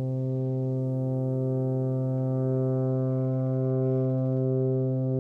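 Ambient electronic drone from looped samples on an Elektron Digitakt: one deep steady tone with layered sustained notes above it. The upper notes swell gently.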